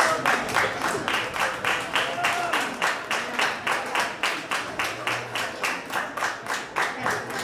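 Audience clapping together in time, a steady beat of about four claps a second.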